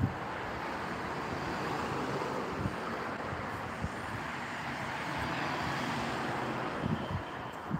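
Road traffic: cars driving past on the street, a steady rush of tyres and engines that swells through the middle and eases near the end, with a few soft low thumps.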